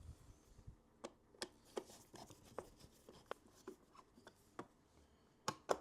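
Faint, irregular light clicks and taps of small parts being handled, about two or three a second, with two sharper knocks near the end.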